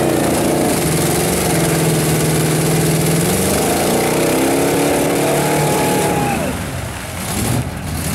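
Lifted pickup truck's engine revving hard under load as its mud tyres spin through a deep mud hole, throwing mud. The revs hold high, then fall away about six and a half seconds in before picking up again near the end.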